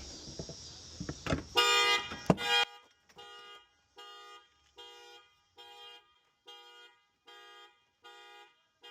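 Toyota Highlander's anti-theft alarm going off: its horn sounds a loud blast, then honks over and over at about one per second. Some clicks and rustling come just before.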